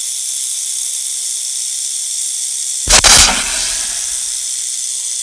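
Rattlesnake rattle buzzing steadily at full speed, with a sudden loud hissing burst and a low thump about three seconds in as the snake strikes.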